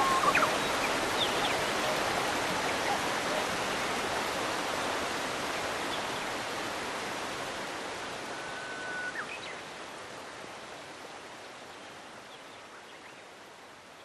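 Waterfall rushing in a steady hiss that fades out slowly. Two brief high whistles rise over it, one near the start and one about nine seconds in.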